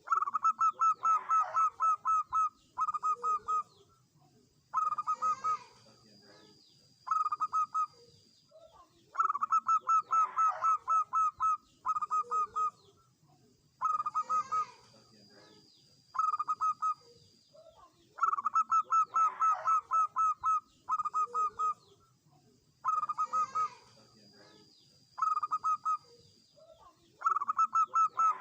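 Zebra dove (perkutut) song: groups of quick, staccato cooing notes repeated every few seconds, the whole pattern recurring about every nine seconds. A faint thin high tone follows some of the groups.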